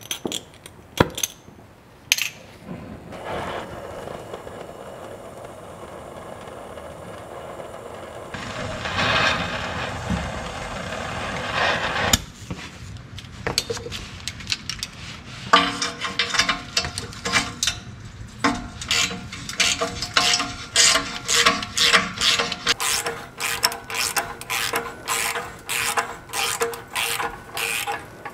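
Hand ratchet wrench being worked on a bolt under a truck, clicking in a quick, even run of strokes through the second half. Before that there is a steady rushing noise that swells for a few seconds and then stops.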